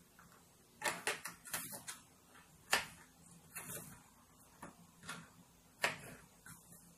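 Kitchen knife chopping an onion on a plastic cutting board: irregular sharp taps of the blade striking the board, in small clusters, the loudest a little under three seconds in.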